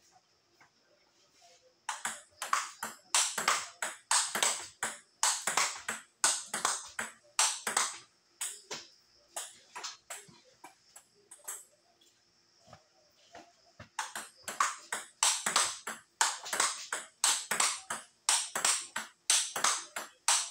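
Table tennis rally: the ball clicks sharply off the paddles and bounces on the table, about three hits a second. A fast run of hits starts about two seconds in, thins out in the middle, and picks up again for a second fast run.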